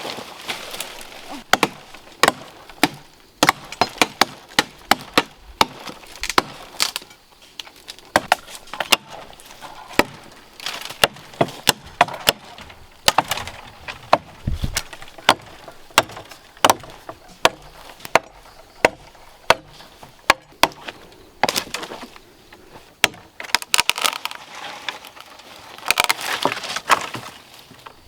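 Repeated, irregular chopping strikes of a hand tool, roughly one or two blows a second, with some quicker clusters.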